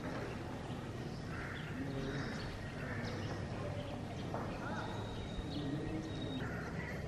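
Outdoor ambience: a few bird calls repeating about a second apart, with faint distant voices.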